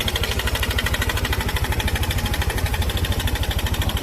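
Yamaha NMAX scooter's single-cylinder engine idling with a steady, fast pulsing and a small knock that the mechanic diagnoses as connecting-rod (big-end) noise from inside the engine.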